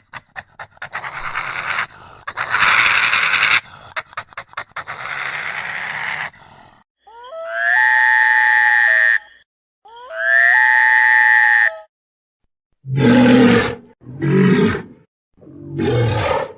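A string of made-up creature sound effects for Rahi beasts: a quick run of clicks, a long raspy growl, two identical high screeches with a steady ringing pitch, then three short growls.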